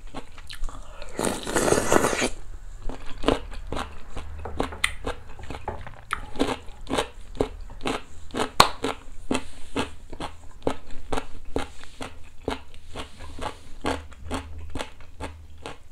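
Close-miked eating sounds: a loud slurp of noodles about a second in, then steady chewing with many small wet clicks and smacks.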